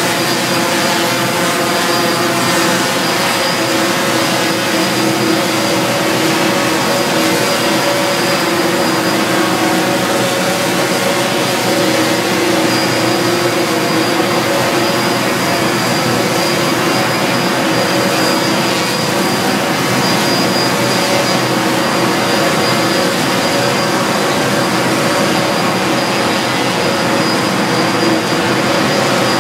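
Multirotor micro aerial vehicle's propellers and motors running steadily in flight inside a penstock tunnel: a constant drone with a few held tones, including a thin high whine.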